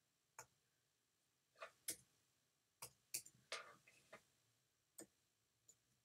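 Computer mouse and keyboard clicking faintly against near silence as a shape is duplicated and resized: about ten short, sharp clicks at uneven intervals, several in quick succession near the middle.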